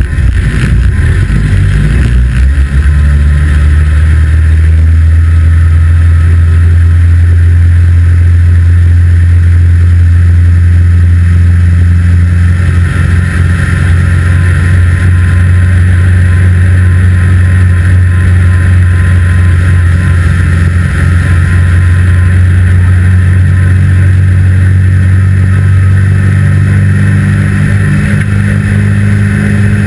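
Engine of a 2-litre saloon stockcar at racing speed, heard from inside its caged cabin. It shifts pitch in the first couple of seconds, then runs hard at near-steady revs.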